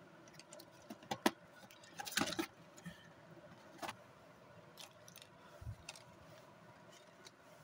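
Cardboard packaging being pulled off a plastic toy RC car, and the car being handled: faint scattered clicks and rustles, with a short burst of scraping about two seconds in.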